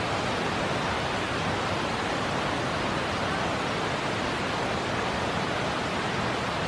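A steady, even hiss with no distinct events and no monkey calls.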